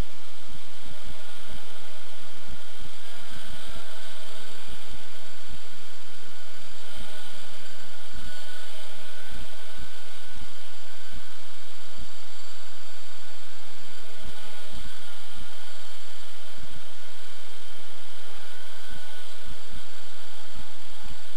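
Multirotor drone's electric motors and propellers buzzing steadily, the pitch wavering slightly, with irregular low thumps of wind on the microphone.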